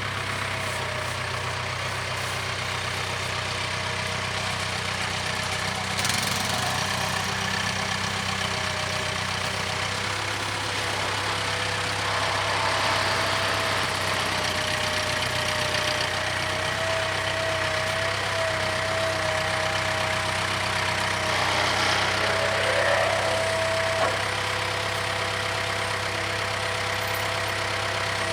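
Case 580K backhoe's diesel engine running steadily with a high, slightly wavering whine over it. There are a few louder, noisier stretches about six seconds in, around halfway and a few seconds before the end.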